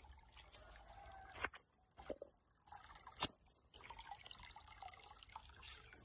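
Faint water dripping, a few sharp drops standing out, the loudest about three seconds in.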